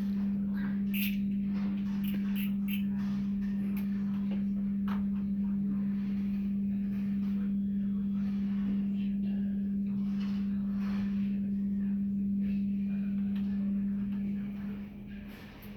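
A steady low-pitched hum on one note that drops away about fourteen seconds in, with faint scattered clicks and rustles over it.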